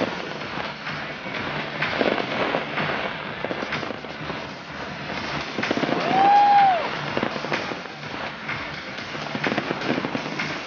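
Fireworks display: aerial shells bursting one after another, with crackling between the bangs. About six seconds in, a single clear tone rises and falls, the loudest moment.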